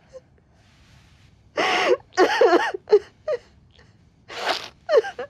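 A woman sobbing: broken, wavering cries and gasping breaths in short bursts, starting about a second and a half in and coming again near the end.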